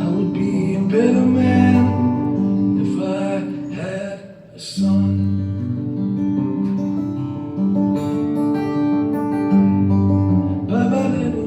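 Live acoustic guitar strummed in a song, with a voice singing without clear words in the first few seconds and again near the end. The playing drops off briefly just under halfway through, then resumes.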